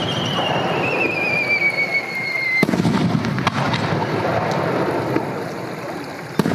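Aerial fireworks: a wavering whistle falls in pitch for about two and a half seconds as a whistling shell climbs, then a sharp bang as a shell bursts, followed by a rolling, echoing rumble. Another sharp bang comes near the end.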